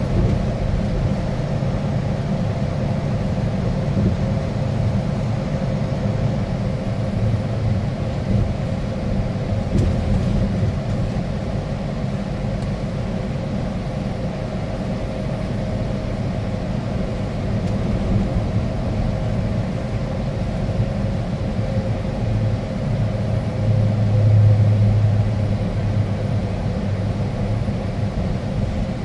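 Steady engine and road rumble heard from inside a moving vehicle's cab, with a faint steady hum above it; the low rumble swells briefly near the end.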